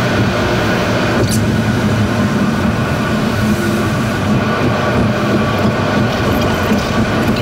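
Road noise heard inside a car's cabin at expressway speed: a steady drone of tyres and engine, with one brief click about a second in.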